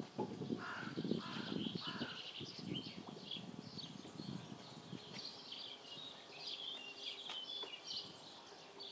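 Birds chirping and singing throughout, with three harsher calls in quick succession near the start. Under them, low rustling and knocking from handling during the first few seconds.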